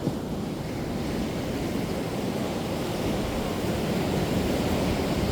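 Ocean surf breaking and washing in a steady rush, growing a little louder toward the end.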